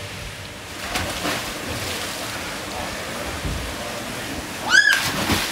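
Steady rush of water and wind noise, with one brief high-pitched cry that rises and falls near the end.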